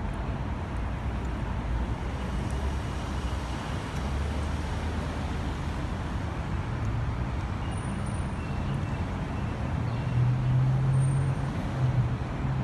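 Street traffic: a steady hum of road vehicles, with a low engine drone growing louder about ten seconds in.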